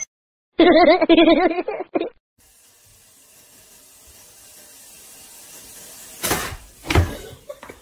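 A cat's drawn-out, wavering meow lasting about a second and a half near the start. Then a faint hiss slowly grows louder, and two short, loud noisy bursts come about half a second apart near the end.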